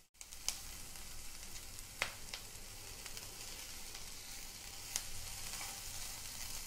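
Chopped onions sizzling quietly in a little oil in a nonstick frying pan while being stirred with a silicone spatula, a few light clicks as the spatula knocks the pan. The onions are being softened, not browned.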